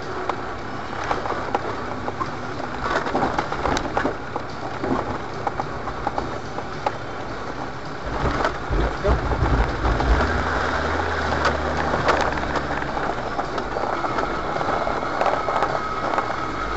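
Land Rover Discovery crawling down a rocky off-road track: tyres crunching and crackling over stones, with clicks and knocks through the body. The engine's low rumble swells from about eight seconds in to about thirteen seconds.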